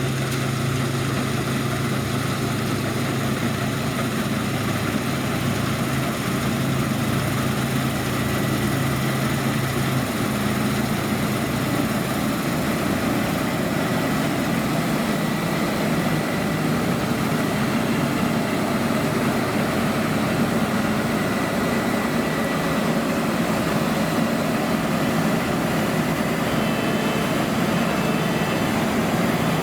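Heavy diesel engine of harvest machinery running steadily; its lowest note drops away about twelve seconds in, leaving a slightly higher drone.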